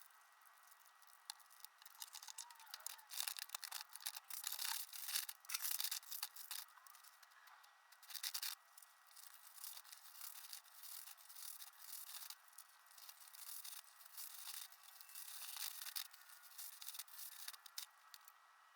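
Irregular scratchy rubbing and scraping strokes, some louder and sharper than others.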